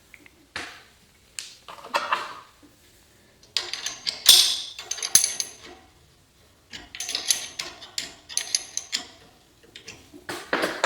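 Metal tools and hardware clinking and scraping in irregular bursts, with a few ringing metallic clanks in the middle.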